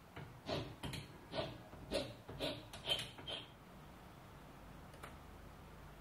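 A hand file scraping in rhythmic back-and-forth strokes, about seven of them roughly two a second, stopping about three and a half seconds in.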